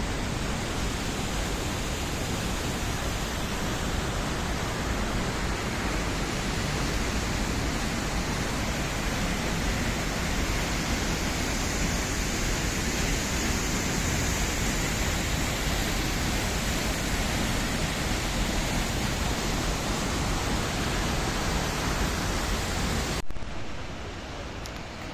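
Waterfall: a steady, even rush of falling water. Near the end it drops abruptly to a quieter, duller rush.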